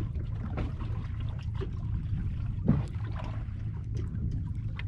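Water lapping and trickling against the side of a small boat, over a steady low rumble, with light clicks of fishing tackle being handled. A short murmur of a voice comes about halfway through.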